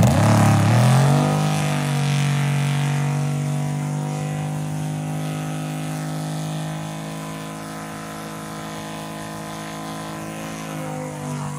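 Big-block V8 of a fake Dodge Daytona revving up, then held at steady high revs through a burnout with the rear tyres spinning. It gradually gets quieter.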